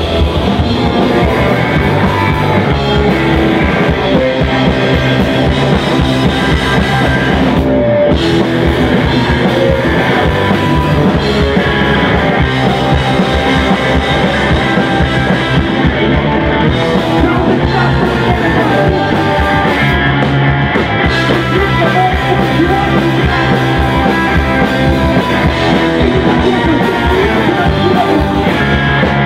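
Live rock band playing loud and without a break: drum kit, electric guitar and bass guitar, with a singer's vocals over them.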